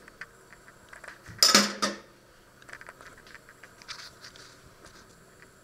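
Metal kitchen tongs and a stainless steel steamer pot clattering together in one loud crash of several quick hits, about a second and a half in, with a brief ring. Light clinks and ticks follow.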